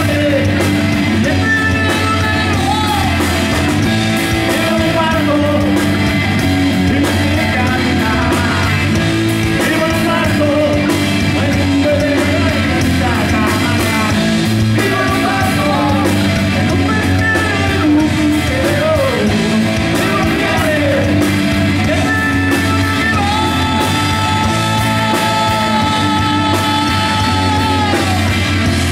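Live rock trio playing a song: electric guitar, bass guitar and drum kit together over a steady beat, with melody lines that bend up and down in pitch and one long held high note near the end.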